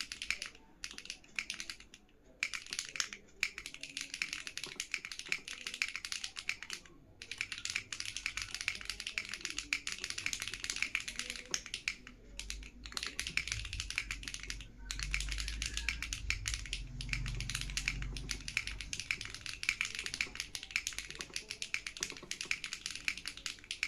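Fast typing on an Enter67 v2 mechanical keyboard fitted with OTC Modo Light switches and Cilantro keycaps: a dense, continuous patter of key clacks with a few brief pauses.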